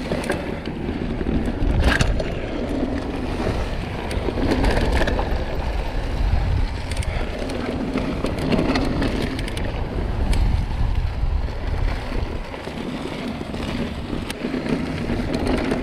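Mountain bike descending a dirt trail: knobby tyres rolling and scrabbling over the ground, wind rushing over the rider's microphone, and short rattles and knocks from the bike now and then.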